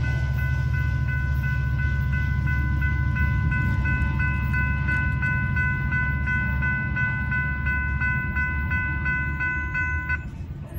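Railroad grade-crossing warning bell ringing in quick, even strokes while the gates are down, then stopping suddenly about ten seconds in as the crossing clears and the gates are about to lift. A steady low rumble runs underneath.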